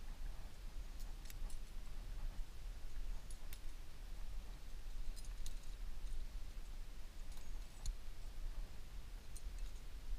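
Wind rumbling on the microphone, with scattered light clicks of climbing gear (rope and karabiners) at a belay.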